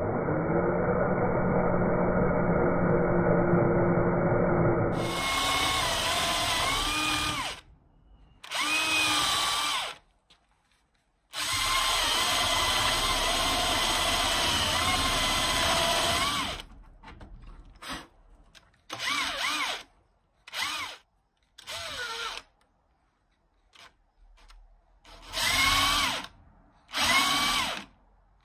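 Electric drill boring a concealed-hinge cup hole in plywood with a hinge boring bit in a jig. The drill runs in a series of bursts: a long run at the start, muffled for its first few seconds, another long run in the middle, then several short ones. Its whine dips and rises in pitch as the bit bites.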